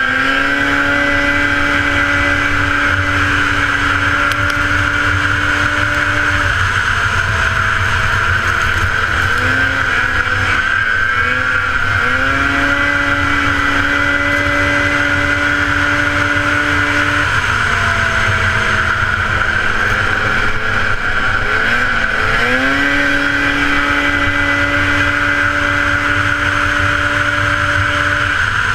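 1977 Polaris TX-L snowmobile's two-stroke engine running hard from the seat. It holds a steady high pitch for several seconds, then drops and wavers as it backs off, then climbs back up, three times over. A steady high whine and wind rumble on the mic run under it.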